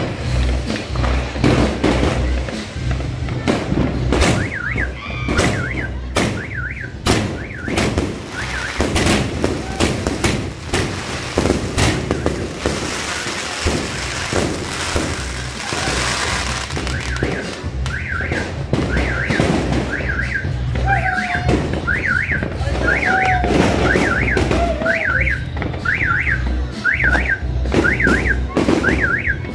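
New Year's midnight firecrackers and fireworks going off in a rapid, irregular string of bangs, over music with a steady bass beat. An alarm chirps in a repeating rising-and-falling pattern, faintly at first and steadily from about halfway, like a car alarm set off by the blasts.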